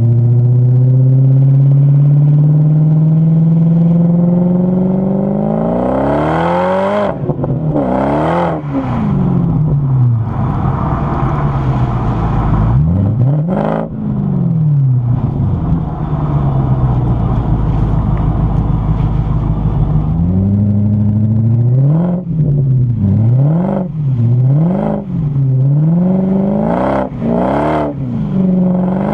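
BMW 545i's 4.4-litre V8 through a Magnaflow exhaust under hard acceleration, the exhaust note rising steadily for about seven seconds before gear changes pull it down and up again. After a steadier stretch of cruising, the revs drop and climb several times in quick succession near the end.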